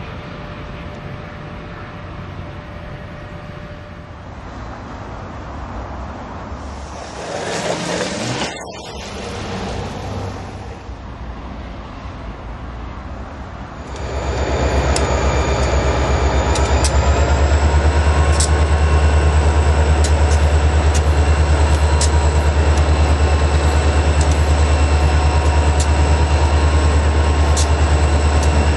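Caltrain diesel locomotive approaching a station with a low rumble and a brief rush of noise about eight seconds in. About halfway through the rumble gives way to the loud, steady low drone of a Union Pacific diesel freight locomotive's engine, with faint clicks over it.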